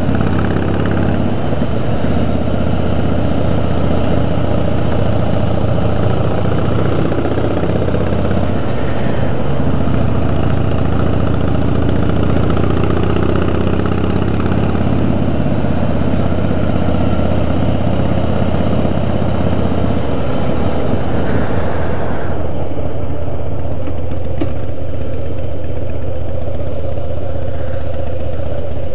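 Harley-Davidson V-twin engine running as the motorcycle rides along, with wind rushing over the microphone. About 22 seconds in the wind noise falls away as the bike slows and pulls up, and the engine carries on at low revs.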